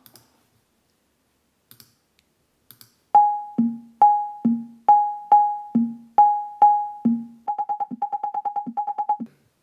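Synthesised beeps from the browser-beep library sounding a sorting-algorithm visualisation: starting about three seconds in, a higher beep and a lower beep alternate about once a second, then a fast run of higher beeps, several a second, with an occasional lower one. The two pitches mark the sort's different steps, index moves and swaps.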